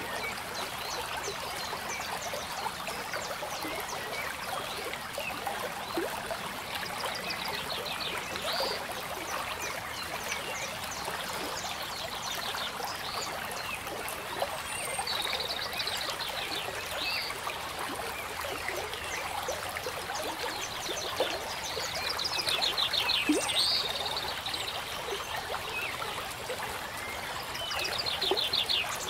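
Alcohol marker nib stroking and scratching across paper in repeated strokes, with short squeaky passages, over a steady hiss.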